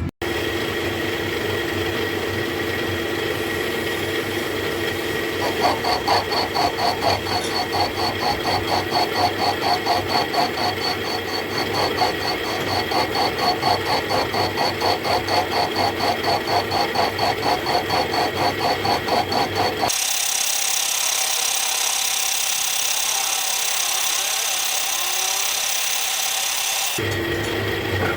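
A metal-cutting machine runs steadily, cutting a cast-iron casting. From about five seconds in it takes on a rhythmic pulsing, about three beats a second. At about twenty seconds it switches abruptly to a high hissing noise for several seconds, then returns to the steady running.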